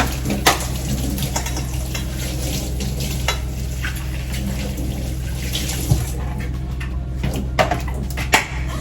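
Knocks and clinks of refrigerator parts being handled during cleaning, with sharper knocks about half a second in, near six seconds and twice near the end, over a steady low hum.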